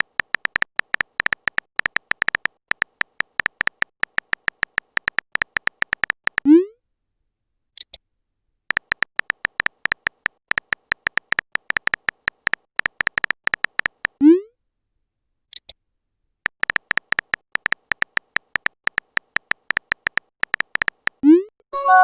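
Messaging-app sound effects. Rapid keyboard-typing clicks come in three runs of about six seconds each. Each run ends with a short rising swoosh as a message is sent. The first two swooshes are followed by a brief high blip.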